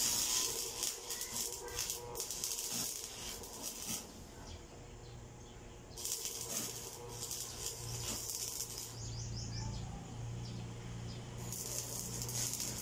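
Electric arc welding on a steel pipe post: the arc crackles and sizzles in runs, breaking off about four seconds in, striking again about two seconds later, stopping again around nine seconds, and starting once more near the end.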